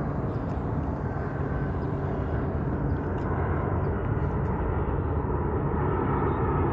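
Jet aircraft engine noise: a steady rumble that grows slowly louder as the plane approaches.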